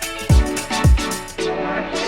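Background music with a steady electronic beat, kick drum about twice a second; the drums drop out briefly near the end.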